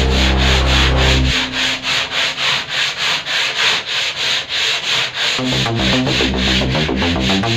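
Rapid back-and-forth scrubbing of a weathered wooden wall by hand, about four strokes a second, cleaning the wood before it is painted. Background music with low sustained notes plays under it at the start, drops out after about a second, and returns near the end.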